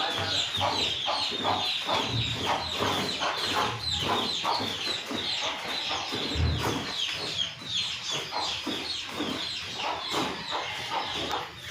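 Chickens clucking, with many short high chirps falling in pitch, repeated over and over.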